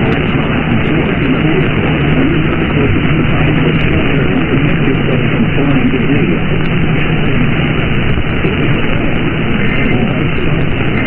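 Loud, steady hiss of radio static from a radio receiver, with a faint low hum under it.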